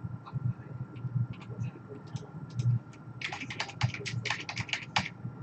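Typing on a computer keyboard: a few scattered keystrokes, then a quick run of rapid keystrokes from about three seconds in.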